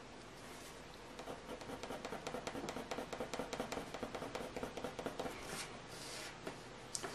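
Soft 6B graphite pencil scratching across heavy hot-press watercolour paper in quick short strokes, many a second, as fur texture is shaded in; the strokes start about a second in.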